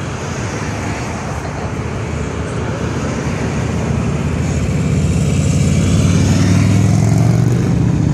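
Motorcycle engines getting steadily louder as a line of motorcycles rides up and past, over the noise of passing traffic on the road.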